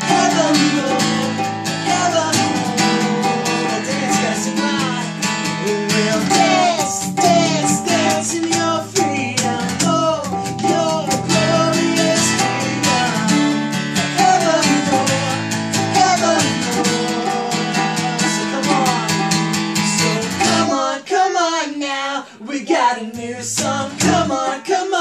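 Two acoustic guitars strummed together, a full-size guitar and a child's smaller one, playing chords in a steady rhythm. Near the end the low chords drop away for a moment before the strumming comes back.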